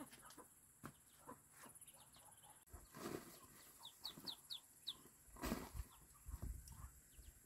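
Hand hoe chopping into dry garden soil, two dull thuds about three and five and a half seconds in, with bird calls in the background, among them a quick run of about five short high chirps about four seconds in.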